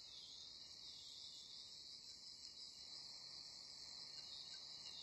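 Near silence: a faint, steady high-pitched hiss.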